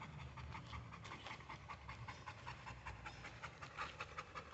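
A dog panting fast and steadily, short breaths several a second, breathing hard after exertion.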